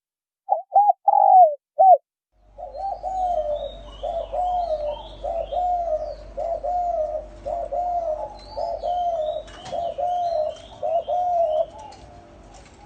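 Spotted doves cooing. A few clean coos come first, then from about two seconds in a long run of short, evenly repeated coos, roughly three every two seconds, that fades near the end. Small birds chirp faintly in the background over a low steady hum.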